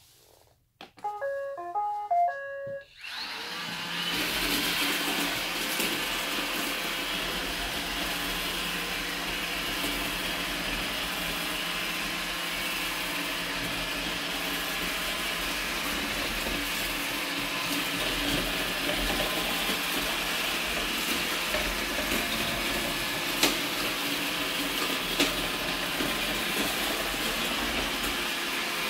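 iRobot Roomba robot vacuum plays a short electronic tune of stepped notes as it starts. Its brushes and vacuum motor then start up and run steadily in spot-cleaning mode.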